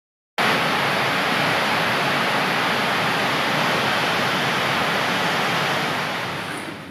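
A steady, even hiss that starts abruptly just after the start, holds level, and fades out over the last second.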